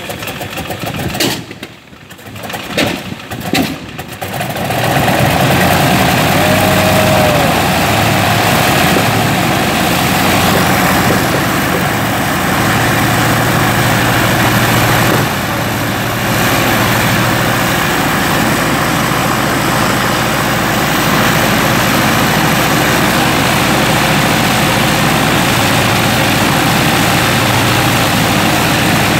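Jacobs seven-cylinder radial aircraft engine on a test stand, firing unevenly with a few loud pops for the first few seconds, then catching and running steadily with its propeller turning. The level dips briefly about halfway through.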